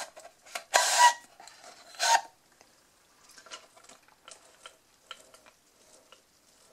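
Plastic drinking straw rasping and squeaking as it is pushed down through the plastic lid of a fast-food soft-drink cup. The loudest rasp comes about a second in and a shorter one just after two seconds, followed by faint sipping through the straw.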